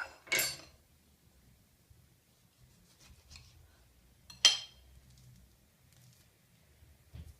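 Sparse kitchen dish and utensil noises: a short clatter just after the start, a few faint knocks, and one sharp, ringing clink about four and a half seconds in, as of a utensil struck against a glass or dish.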